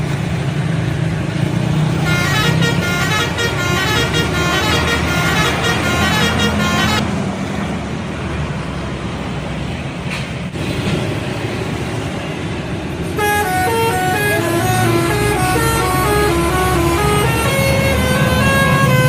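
Bus telolet horn, an array of electric trumpet horns, playing a fast stepping run of notes. The run plays for a few seconds and stops, then a bus engine and traffic run without horns. The horn melody starts again about two-thirds of the way through and carries on to the end.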